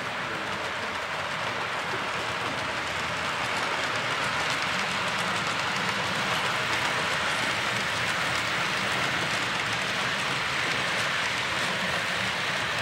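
Model train running along the layout's track: a steady rushing of wheels and motor that grows a little louder partway through.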